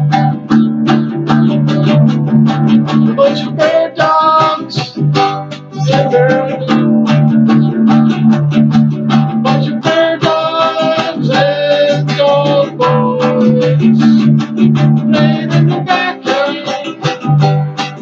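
Instrumental passage of a song led by guitar: a picked melody over sustained chords, with frequent short strokes throughout.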